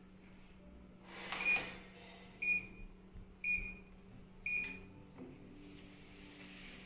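Sparnod STH-1200 treadmill control panel beeping four times, short high beeps about a second apart, as its buttons are pressed. A faint steady hum runs underneath.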